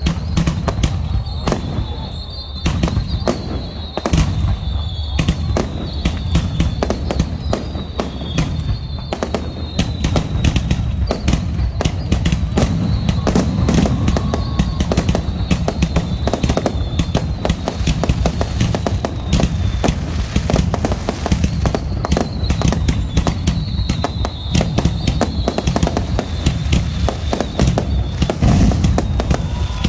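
Fireworks display: a loud, continuous barrage of bangs and crackles, many shots a second without a break.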